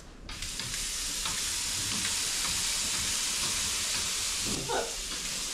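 Washroom tap set running: a steady, loud rushing hiss starts sharply just after the start and keeps going.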